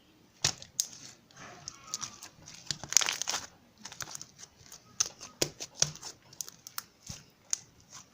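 Slime being squeezed and stretched by hand: irregular sticky pops and crackles, with a denser crackling stretch about three seconds in.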